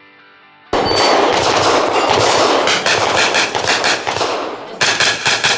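Rapid gunfire from an AR-style carbine: a fast string of shots in quick succession. It starts suddenly about a second in, and there is a brief pause near the end before the shots resume.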